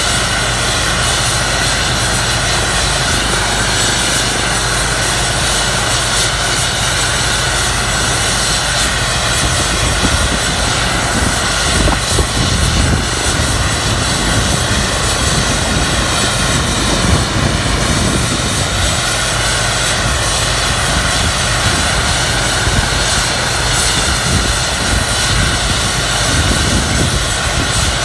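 Airbus EC135 T2+ helicopter running on the ground: a loud, steady whine from its twin Turboméca Arrius 2B2 turboshaft engines over a low rotor noise.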